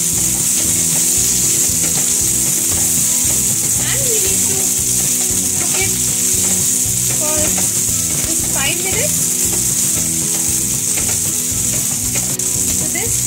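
Diced bell peppers, onion and garlic sizzling in hot oil in a nonstick frying pan, stirred with a wooden spatula. A steady high sizzle, with a few short scrapes of the spatula.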